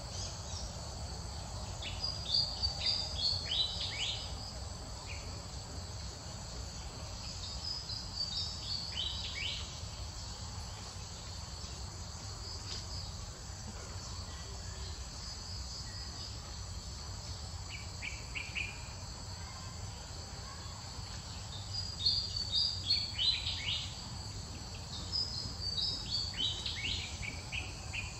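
Steady outdoor insect drone, with short runs of high chirping calls every few seconds. The runs are loudest about two seconds in and again near the end.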